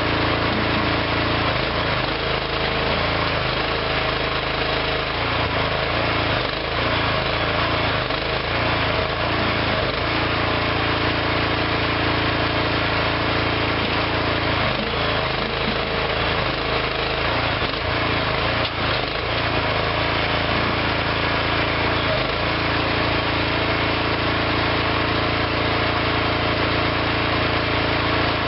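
Small engine of a homemade hydraulic backhoe running steadily, its note wavering for a few seconds at a time as the machine works.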